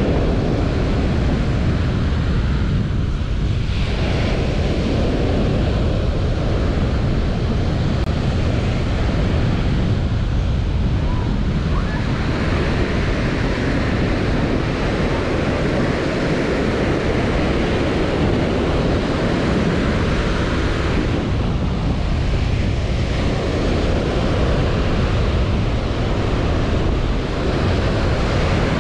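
Small ocean waves breaking and washing up a sandy beach in a continuous wash that swells and eases every few seconds, with wind on the microphone adding a steady low rumble.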